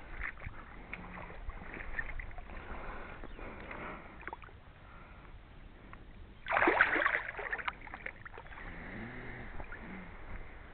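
Water splashing as a rainbow trout is lowered into shallow water by hand and released. The splash is one loud burst of about a second, a little past the middle, with quieter small water sounds around it.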